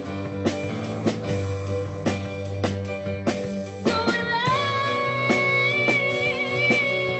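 Music: a song with guitar and a steady beat, and a long held note that comes in about four seconds in.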